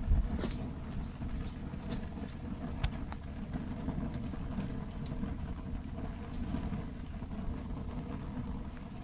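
Charcoal grill fire burning in tall flames: a steady low rumble with a few scattered crackles and pops.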